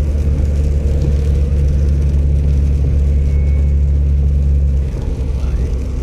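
A car's engine and road noise while driving: a steady low drone that eases off slightly about five seconds in.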